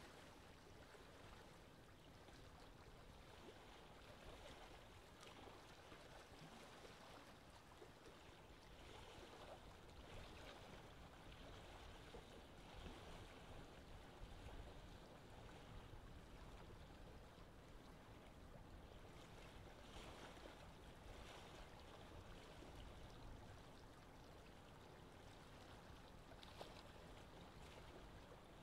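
Faint, steady wash of wind and choppy sea water, with a low rumble underneath and no distinct event.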